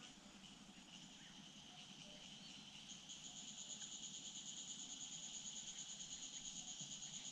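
Faint, steady, high-pitched insect chorus that grows louder and takes on an even pulsing about three seconds in.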